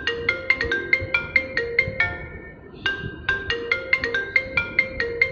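iPhone ringtone playing a quick melody of struck, marimba-like notes, the phrase repeating about every three and a half seconds.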